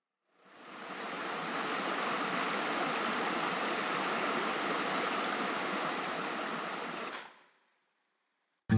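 Shallow stream flowing over rocks: a steady rushing of water that fades in over the first second and fades out about seven seconds in.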